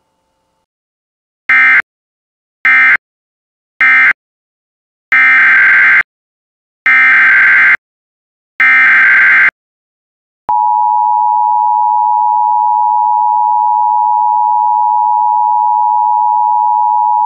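Emergency Alert System data bursts: three short end-of-message bursts of the previous alert, then three longer header bursts of the next alert. About ten seconds in, the EAS attention signal starts: a steady two-tone chord.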